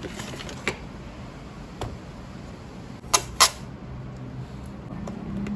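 A few short, light clicks and knocks, the loudest two close together about three seconds in, with a low hum coming up near the end.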